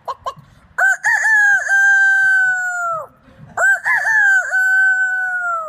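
Rooster crowing twice. Each crow opens with a few quick up-and-down notes, then holds one long note that sags at the end; the second follows close after the first.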